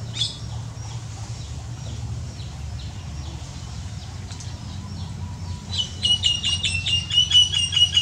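Male baya weaver calling at its hanging nest: a single sharp chirp at the start and a few faint ones, then for the last two seconds a fast, loud chattering run of sharp notes, about five or six a second. A steady low rumble runs underneath.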